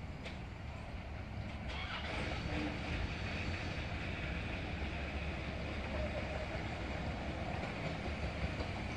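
A 15-inch gauge miniature railway train approaching along the track, a steady rumble of wheels on the rails that grows slightly louder from about two seconds in.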